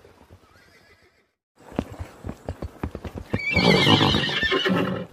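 Horse hooves knocking on the ground, then a horse neighing loudly about three and a half seconds in, for about a second and a half.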